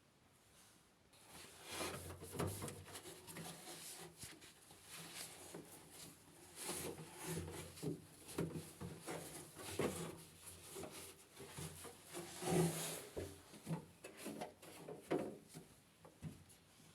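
Irregular light knocks, clacks and rubbing of parts and tools being handled, with a sharper knock about twelve and a half seconds in.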